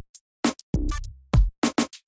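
Electronic background music: a drum-machine beat of kick and snare hits, with a short pitched synth note about three-quarters of a second in.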